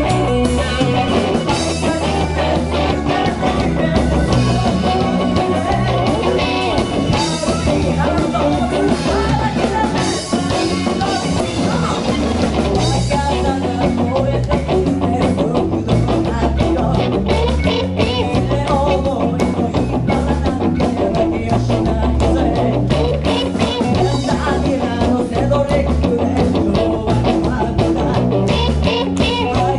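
A live rock band playing with electric guitar, electric bass and drum kit, and a woman singing lead into a microphone.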